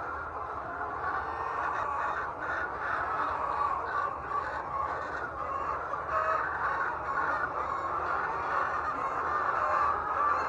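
A large flock of laying hens clucking and calling all at once, a steady dense din of many birds with no pauses, over a low steady hum.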